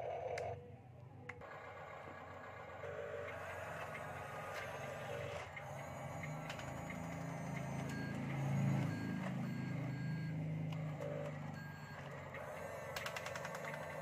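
Reversing beeps from a radio-controlled toy construction vehicle's sound unit, a short beep about once a second through the middle stretch, over a low rumble that swells and then fades.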